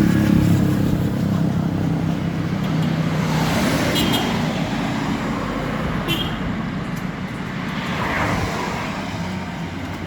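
A bus passing on a road: a deep engine hum that is loudest at first and fades over the first couple of seconds, under continuous tyre and traffic noise that swells again about eight seconds in.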